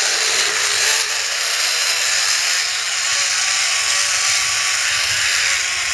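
Zipline trolley pulley running fast along the steel cable, giving a steady whirring hiss throughout the slide.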